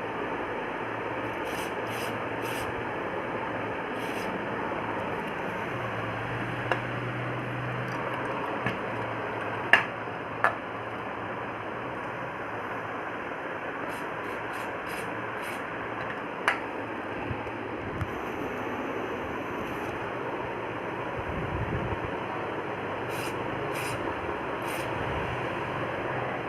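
Rocking chair rocking, its hinges rubbing and creaking steadily, with a few sharp clicks along the way.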